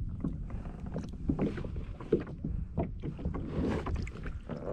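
Knocks, clicks and small splashes of water at a kayak, with a low steady rumble of wind on the microphone.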